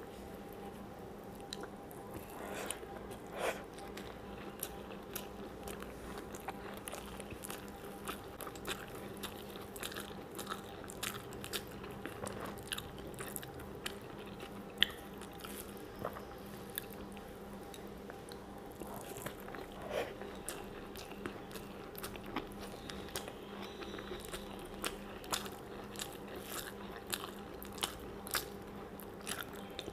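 Close-miked chewing of rice and fried greens, with many small sharp crunches and mouth clicks scattered throughout, over a steady low hum.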